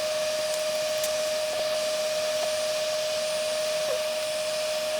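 Hot air rework station blowing steadily, a rush of air with a steady whine, while the new Chestnut display IC is being soldered to an iPhone 6s logic board. It cuts off abruptly at the end.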